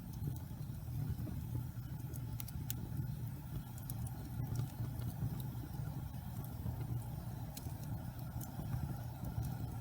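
Wood fire burning in a fireplace: a steady low rumble with scattered sharp crackles and pops from the burning logs.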